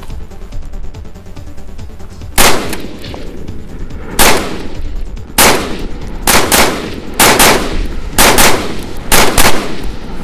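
Mud-caked AR-15 rifle firing about ten semi-automatic shots, roughly a second apart with several in quick pairs, starting a couple of seconds in and stopping near the end. Despite the mud it keeps cycling.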